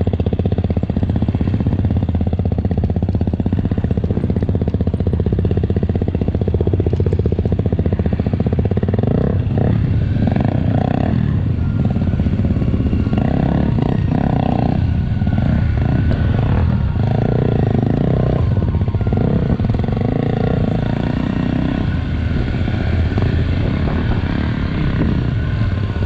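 An off-road trail motorcycle's engine running steadily as the bike is ridden.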